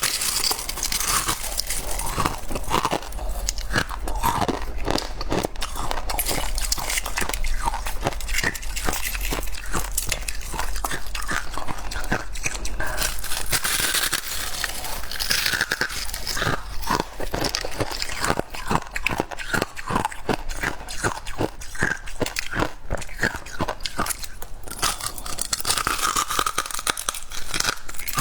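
Close-miked biting and chewing of soft freezer frost, a fast run of crisp, powdery crunches several times a second, over a low steady hum.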